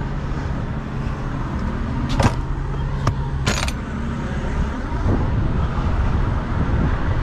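Semi-truck's diesel engine idling steadily, with two sharp knocks about two and three and a half seconds in.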